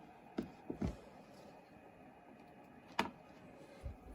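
A few light clicks and taps from handling wires and a wiring-harness connector, with a sharper click about three seconds in.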